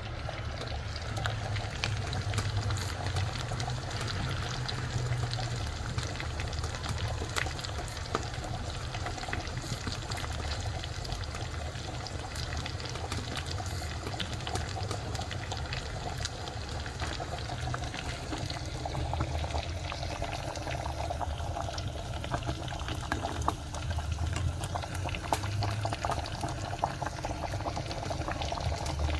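Pork sausage frying in a pan on a wood-burning stove: a steady sizzle with frequent small pops and crackles of spitting fat.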